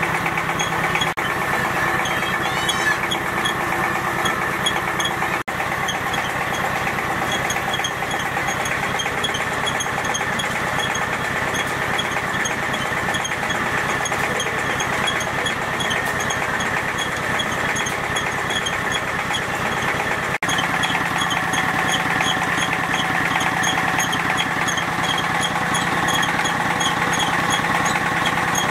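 Motorized wet-rice grinder running steadily as soaked rice is milled into rice milk: a constant machine hum with a fast, regular ticking over it.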